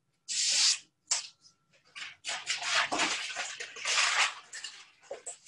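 Irregular rustling and crinkling of materials being handled and moved about on a table, in a run of short noisy bursts, densest in the second half.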